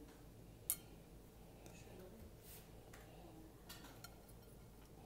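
Near silence broken by a few light clicks, the sharpest one under a second in: a metal spoon knocking against a glass mixing bowl while the food is stirred.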